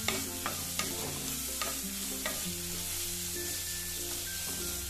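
Chopped onions, green chillies and garlic frying in oil in an aluminium kadai, stirred with a wooden spatula: a steady sizzle with a string of sharp knocks and scrapes of the spatula against the pan, most of them in the first half.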